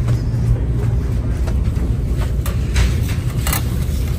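A steady low rumble, with a few short rustles and clicks near the end as clothes on hangers are handled on a metal rack.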